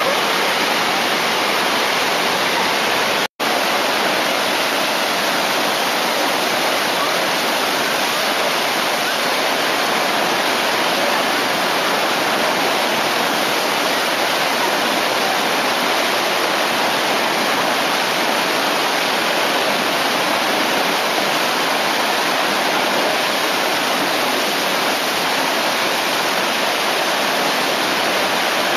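Steady rushing of fast whitewater at the Eisbach standing river wave. The sound cuts out for an instant about three seconds in.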